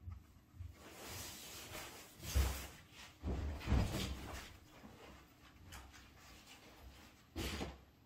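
Small Maltese–Shih Tzu mix dog nosing through a felt snuffle mat: irregular rustling of the felt strips, with soft thumps about two and a half and four seconds in and another rustle near the end.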